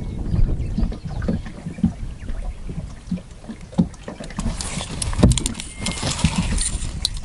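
Water slapping against the hull of a small moored fishing boat, with irregular low knocks over a low rumble. From about four and a half seconds in, a spell of sharp clicks and rustling joins in.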